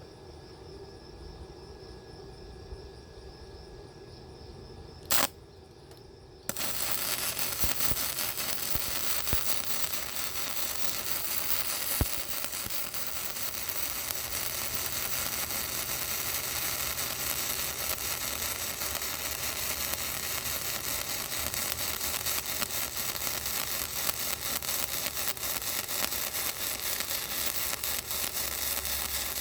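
MIG welder: quiet for the first six seconds apart from a low hum and one sharp click, then the arc strikes and crackles steadily as a straight bead is run.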